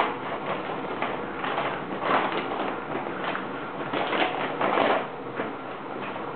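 Shopping bag and packaging rustling and crinkling in irregular bursts as a camera box is pulled out, loudest about two seconds in and again around four to five seconds in.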